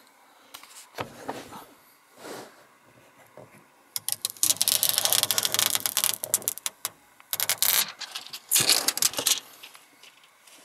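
Protective plastic film being peeled off a dash cam mirror: a crackling, crinkling rip lasting about three seconds from about four seconds in, then two shorter crackles near the end.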